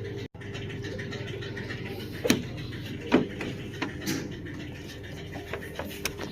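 A steady mechanical hum with a held tone, broken by several sharp clicks and knocks, the loudest two about a second apart near the middle.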